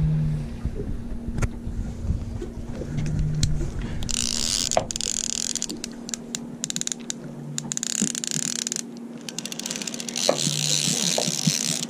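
Charter Special TR 2000 lever-drag conventional fishing reel being cranked in spurts, its gears whirring and clicking as line is wound in on a hooked ling cod. There are spurts of cranking about four seconds in, around seven to nine seconds, and near the end.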